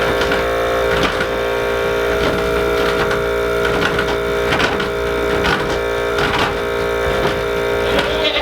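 Goat milking machine running: the steady hum of its vacuum pump, with repeated clicks.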